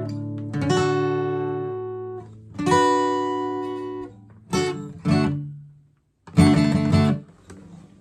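Acoustic guitar playing the closing chords of a song. Two strummed chords are left to ring out, then come a few short strums, and a last loud chord is cut off sharply about seven seconds in.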